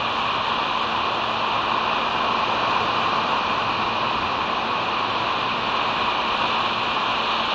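Steady, even rushing noise with a faint low hum, picked up by an outdoor nest camera's microphone; no eagle calls.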